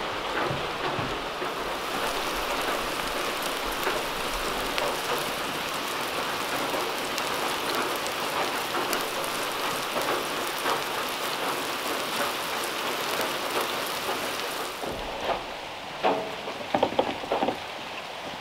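Burger patties sizzling in oil on a cast-iron griddle over a wood fire, a steady hiss dotted with small crackles. About 15 seconds in it cuts off, and a few knocks and rustles follow as dry mix is poured from a bag into a bowl.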